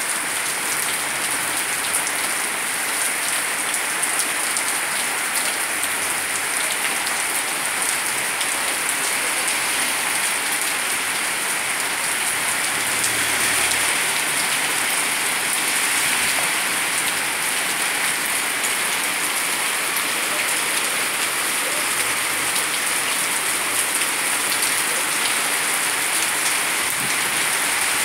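Rain pouring steadily, a dense, even patter of drops that stays at much the same level throughout.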